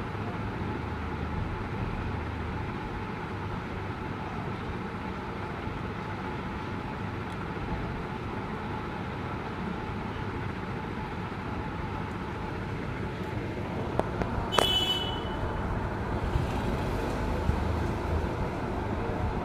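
Steady background rumble of road traffic. About fourteen and a half seconds in there is a sharp click, then a brief high-pitched sound.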